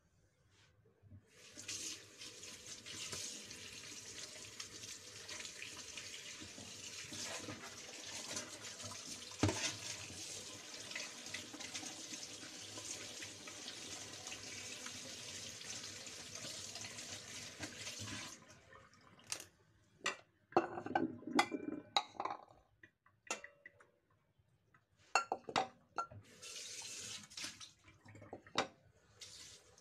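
Kitchen tap running into a stainless steel sink while raw meat is rinsed by hand under the stream. About eighteen seconds in the water stops and a run of knocks and clanks follows, with a short burst of running water again near the end.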